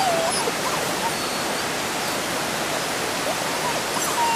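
Eight-week-old Belgian Malinois puppies whimpering briefly, once at the start and again near the end, over a steady rushing noise like running water.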